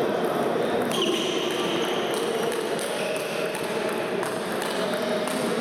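Irregular sharp clicks of table tennis balls on tables and bats over a steady background of sports-hall noise.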